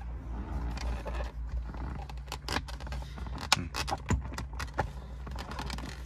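Plastic steering-column shroud being pried upward off its clips: a string of sharp plastic clicks and scrapes, with the keys hanging in the ignition jangling as the cover is jostled.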